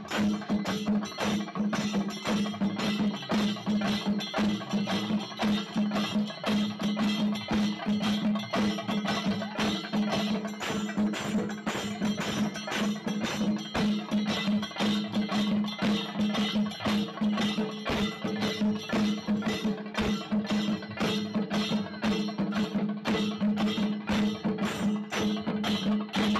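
Kerala temple drum ensemble beaten with sticks, playing a fast, continuous beat of dense strokes, with a steady held note sounding underneath.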